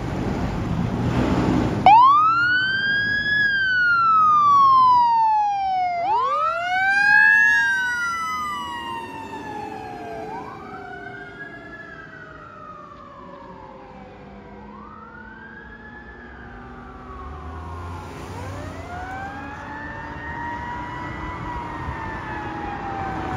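Fire engine sirens starting up about two seconds in and wailing in repeated sweeps that rise quickly and fall slowly, with a second siren tone gliding underneath. They fade as the engine drives off, then swell a little again near the end.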